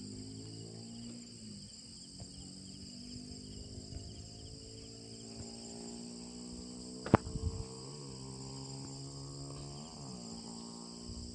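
Steady high-pitched chorus of crickets and other insects, under a low steady hum. About seven seconds in there is one sharp knock, the loudest sound.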